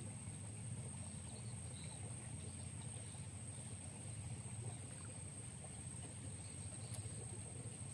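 Steady low drone of a distant motor, with a constant high-pitched whine above it.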